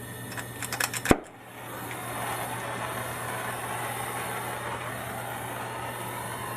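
A soldering torch clicks as it is lit, with one sharp click about a second in, then its flame settles into a steady hiss while copper pipe joints are heated for soldering.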